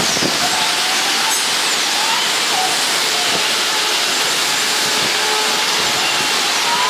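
Steady, loud hiss with a faint wavering whine running through it.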